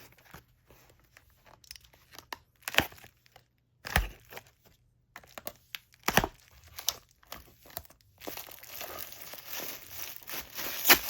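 Shipping packaging being handled and unwrapped: scattered crinkles and sharp handling clicks, then continuous crinkling and tearing from about eight seconds in.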